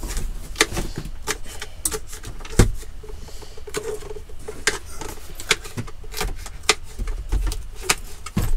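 Kitchen knife slicing red peppers on a chopping board: irregular sharp taps of the blade on the board, with a heavier thump about two and a half seconds in.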